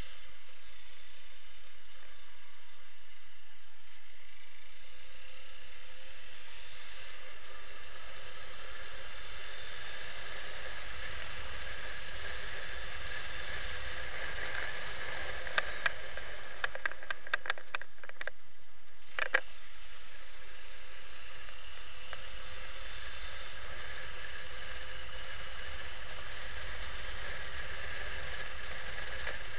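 Motorcycle on the move: a steady rush of wind and road noise over the engine's hum. About halfway through comes a quick run of sharp clicks or rattles, ending in one louder click.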